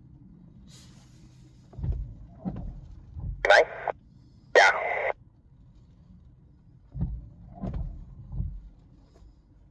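Uniden UBC125XLT handheld scanner's speaker opening twice in quick succession, each time a short burst of narrow, tinny radio sound with a sharp click at the start, as the scanner stops on an active channel. Several low thumps come before and after the bursts.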